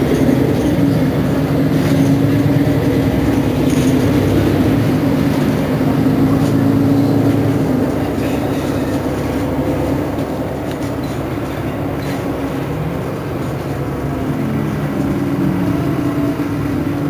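Mercedes-Benz Citaro G C2 articulated bus idling at a standstill: a steady engine drone with a strong low tone, easing off a little and shifting slightly in pitch in the second half.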